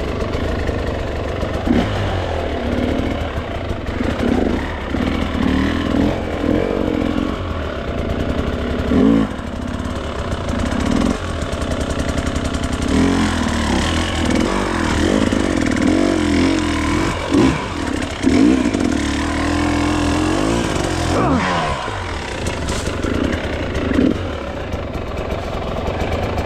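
GasGas dirt bike engine revving up and down again and again in short bursts as the bike is worked through a rough spot on a hard enduro trail.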